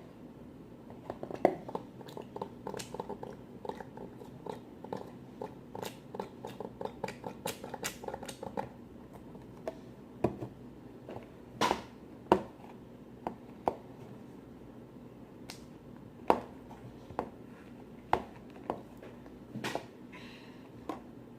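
Fluffy slime made with glue, shaving cream and foaming soap being kneaded and stretched by hand, giving quick wet clicks and pops. They come in a rapid run for the first several seconds, then as scattered louder pops.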